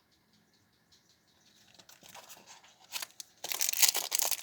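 Plastic wrapper of a Yowie Gummies pack being crinkled and torn open. It starts faintly about a second and a half in and grows into dense, loud crackling over the last second.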